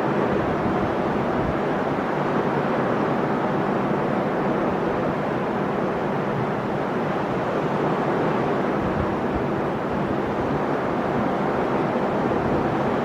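Sea waves breaking on the shore: a continuous, even wash of surf.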